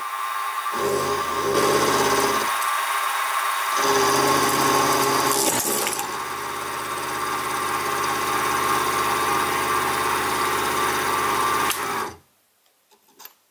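Sieg SX2P mini mill running with an end mill cutting into a metal crank web, a steady motor and cutting whine; it stops suddenly about twelve seconds in.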